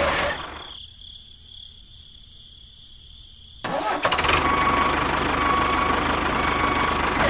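Small model tractor's motor running, dying away in the first second, then after about three seconds of quiet starting abruptly and running steadily with a thin whine.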